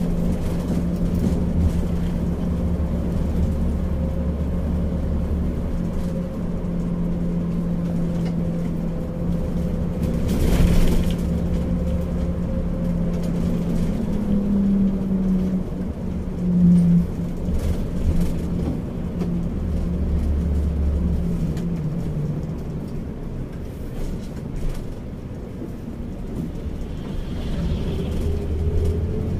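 Bus engine and road noise heard from inside the cabin while driving: a steady low drone whose engine note shifts now and then, a short loud rush of noise about a third of the way through, and the engine pitch rising near the end.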